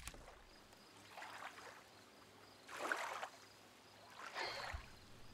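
Faint lapping of small waves against rocks, in three soft swells about a second and a half apart.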